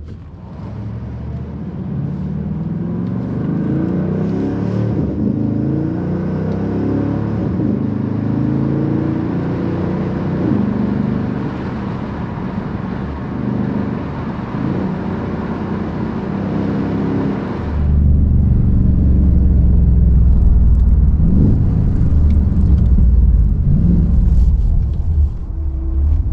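Walkinshaw-tuned LS3 6.2-litre V8 with Walkinshaw headers and exhaust, heard from inside the cabin under hard acceleration, its revs climbing again and again as it pulls through the gears. About two thirds of the way in the sound turns abruptly to a deep low rumble with a couple of short rev rises.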